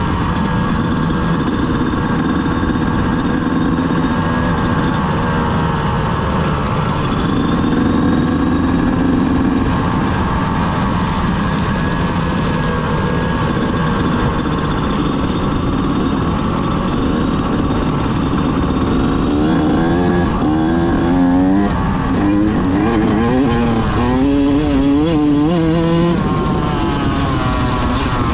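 Yamaha YZ125X two-stroke single-cylinder dirt-bike engine running at a steady pitch, then, about two-thirds of the way through, revved up and down repeatedly for several seconds before settling back.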